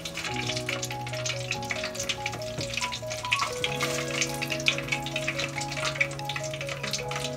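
Egg rolls deep-frying in hot oil in a stockpot, a dense steady crackling and sizzling.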